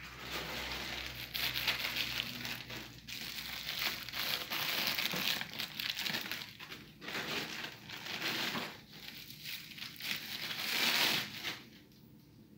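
Plastic packaging crinkling and rustling in uneven bursts as it is handled and pulled away from statue parts; it stops shortly before the end.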